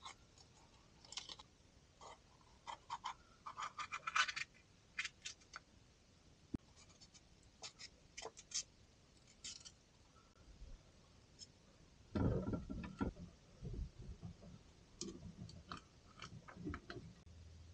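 Small kitchen-prep noises: a knife cutting and scraping a long green pepper over a bowl, heard as scattered faint clicks and scrapes. About twelve seconds in comes a louder clatter and rustle of handling, then a few more small knocks.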